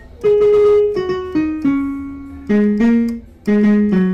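Background music on a piano-like keyboard: a short descending run of held notes, then short repeated chords.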